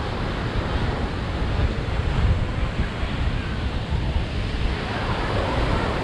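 Ocean surf washing onto a sandy beach, with wind gusting on the microphone as a low rumble.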